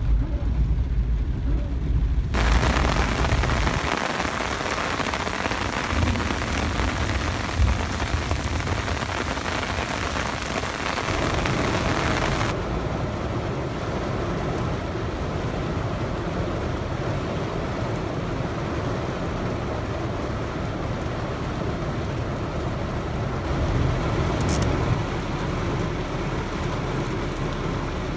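Heavy rain pouring on a car, heard from inside as a steady hiss. The sound changes abruptly about two seconds in and again near the middle, with a deep rumble at the start.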